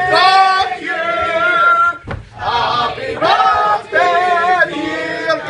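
A roomful of people, mostly men, singing together in short phrases of held notes, with a brief break about two seconds in.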